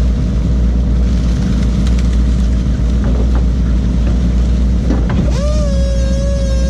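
Fishing boat's engine running steadily under a wash of water noise while the seine net is hauled aboard. About five seconds in, a steady high-pitched whine starts, rises briefly and then holds.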